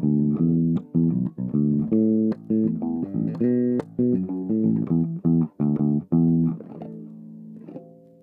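Freshly cleaned guitar played clean, with no effects: a run of short, rhythmic plucked chords and notes with brief gaps. About six and a half seconds in, a last note is left to ring and fade away.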